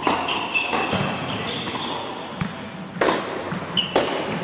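Tennis balls struck by rackets and bouncing on the court during a light rally, several sharp hits about a second apart.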